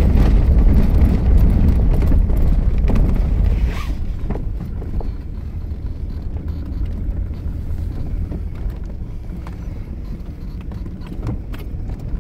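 Land Rover driving across grass, heard from inside the cab: engine and drive noise loud for the first four seconds, then dropping to a lower, steady level.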